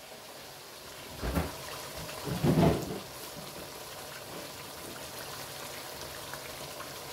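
Chicken karahi simmering in a wok over a gas flame: a steady sizzling, bubbling hiss with faint crackles. Two dull bumps stand out, about a second in and again at about two and a half seconds.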